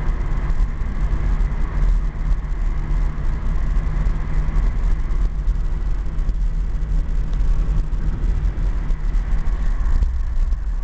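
Subaru Impreza 2.5RS's flat-four engine and road noise heard from inside the cabin while driving at a steady speed, a steady low drone.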